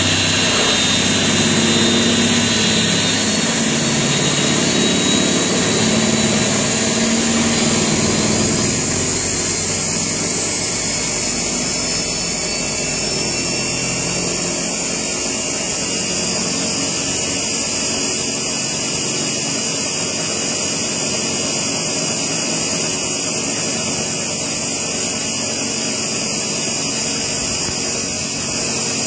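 MS Bead Mill 1L type B, a horizontal laboratory bead mill, running with a steady motor hum and a high hiss. Its low hum wavers in pitch over the first several seconds, then settles steadier and a little quieter.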